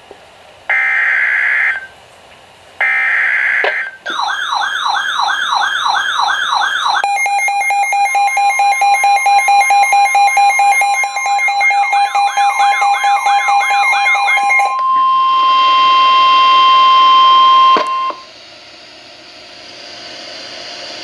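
Emergency Alert System SAME header data bursts, each about a second long: the end of one, then two more. Then weather-radio alert tones: a warbling siren-like tone, joined by a fast-pulsing alarm beep, then a steady single-pitch tone. It cuts off with a click into radio static hiss.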